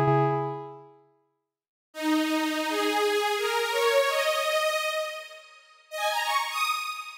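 Xfer Serum software synthesizer playing factory presets: a low held note fades out in the first second, then after a short silence a new preset plays a run of notes climbing in pitch, followed by a second phrase of notes about six seconds in that rings out as it fades.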